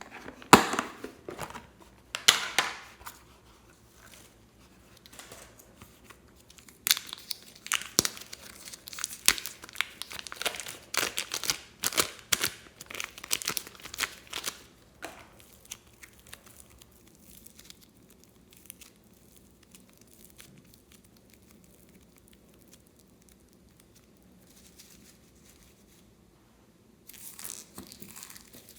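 Slime being squeezed and stretched by hand, making crackling, popping sounds in bursts. The crackling is densest for several seconds in the middle, dies down to faint handling, then picks up again near the end.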